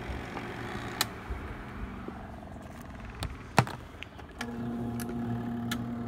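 Spin basket of a compact twin-tub portable washing machine spinning with a steady mechanical whir and two sharp clicks. A little past four seconds in, a steady electric motor hum sets in.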